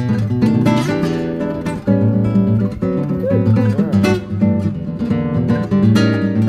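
Background music: strummed acoustic guitar with a steady rhythm of strokes.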